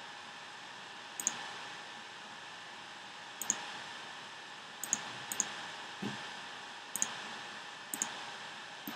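Computer clicks: about eight sharp clicks, some in quick pairs, a second or so apart, made while selecting menu options. Under them runs a steady hiss with a faint hum.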